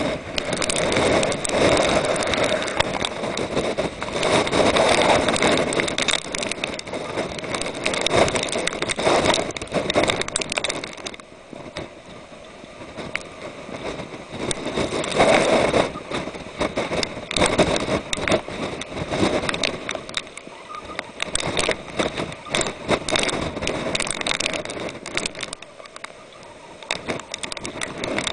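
Typhoon storm wind and rain, a loud rushing noise that swells and drops back every few seconds, with many small clicks and knocks through it. It is quieter for a few seconds near the middle and again near the end.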